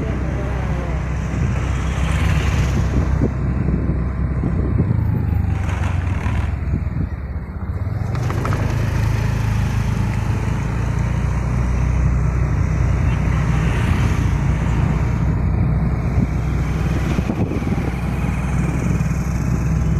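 Steady engine drone with rumbling road and wind noise from a vehicle moving along a road, as other traffic passes close by.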